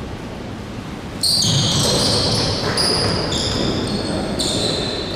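Basketball game in a gym: a ball bouncing on the court, and from about a second in a run of high squeaks at several pitches, typical of sneakers on a hardwood floor.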